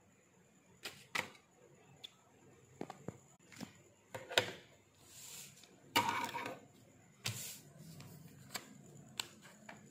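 Paper pages of a hand-drawn comic book being handled: scattered light clicks and taps with a few short rustles, the loudest about four and six seconds in.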